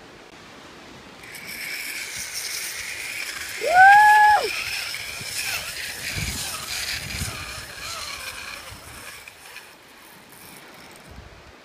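Zip line trolley running along the cable with a steady whirring hiss that starts about a second in and fades out near the end. About four seconds in, a rider gives one short yell that rises, holds and drops, the loudest sound here.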